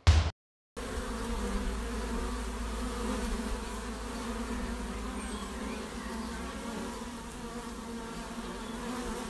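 One short thud at the very start, then, from just under a second in, bees buzzing in a steady, even hum.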